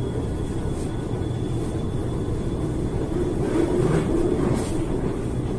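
Steady low rumble of vehicle traffic, with a faint wavering tone about three and a half seconds in.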